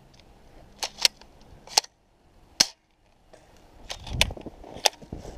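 Airsoft guns firing plastic BBs: a string of about six sharp, separate pops spread irregularly over a few seconds. A brief low rumble comes around four seconds in.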